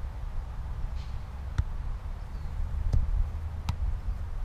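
Soccer ball being kicked and touched during a rally: three sharp thumps of foot on ball, about a second and a half in, near three seconds and again shortly after, over a steady low rumble.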